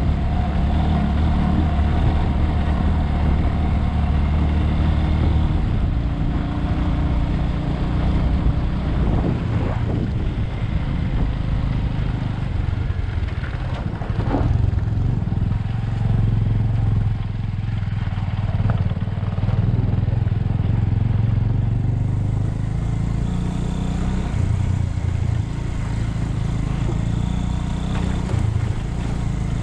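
Bajaj Avenger 220 single-cylinder motorcycle engine running under way, its pitch shifting in steps as speed and gears change.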